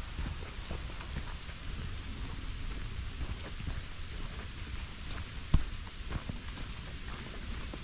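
Footsteps on wet, muddy ground: an irregular patter of small crackles and squelches over a low rumble of wind or handling on the microphone, with one sharp thump about five and a half seconds in.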